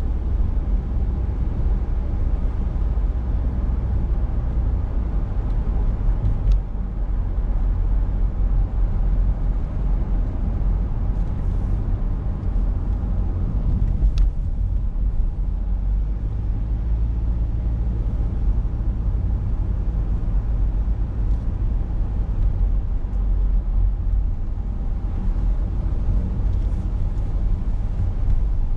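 Car driving along a road: a steady low rumble of engine and tyre noise, with a couple of faint clicks about six and fourteen seconds in.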